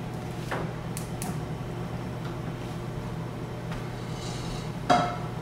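Steady low hum of kitchen appliances, with a few light clicks, then a sharp metallic clank with a brief ring near the end.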